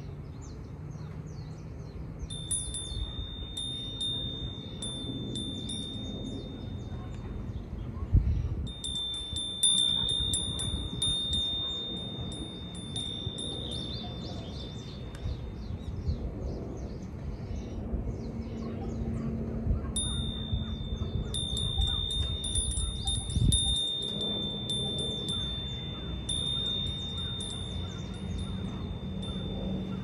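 A wind chime ringing in long runs of rapid strikes as the breeze moves it. It keeps up one high ringing tone, falls quiet for a few seconds twice, and starts again. Two gusts of wind buffet the microphone, about 8 seconds in and again near the middle of the second run.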